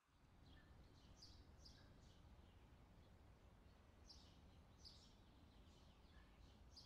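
Faint woodland ambience: a low outdoor hush with scattered short, high bird chirps.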